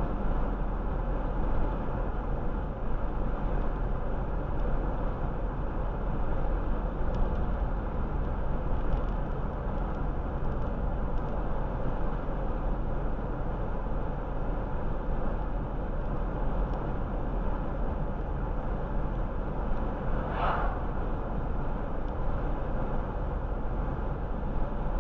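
Car cruising at about 30 mph, heard from the cabin: steady road and tyre noise with a low rumble. A short higher hiss comes about twenty seconds in.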